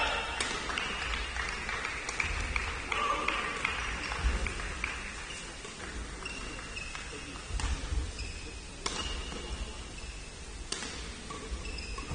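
Badminton rally: rackets strike the shuttlecock in sharp, irregularly spaced cracks, about five in all, with short squeaks of court shoes on the floor.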